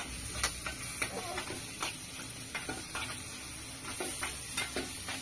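Eggs frying in a small pan, stirred with a spoon that scrapes against the pan in repeated irregular strokes, over a steady sizzle.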